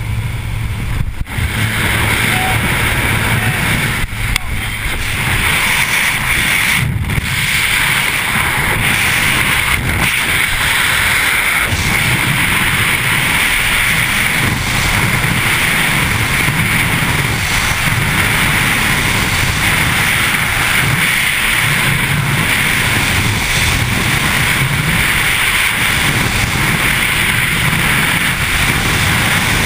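Aircraft engine drone at the open door for the first moments. Then, after the exit, the loud, steady rush of freefall wind buffeting the camera's microphone.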